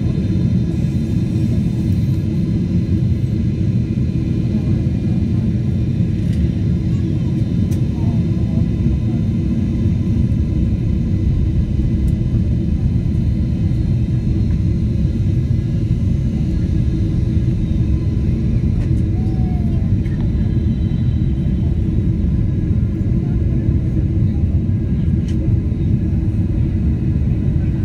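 Cabin noise of a turbofan airliner descending, heard beside the engine: a steady deep rumble with faint, even whining tones above it.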